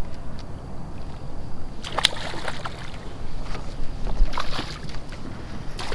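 Water splashing and sloshing beside a kayak as a small hooked redfish is fought on rod and reel. There is a sharp click about two seconds in and a louder splash and knock around four seconds in.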